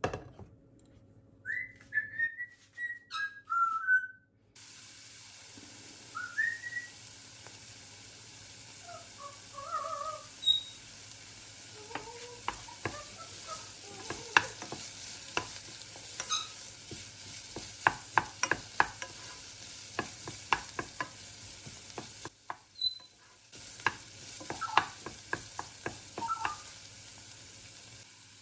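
A pet parrot whistling in short chirps and glides, over the steady sizzle of food frying in a pan from about four seconds in. A utensil stirring and tapping on the pan makes frequent sharp clicks.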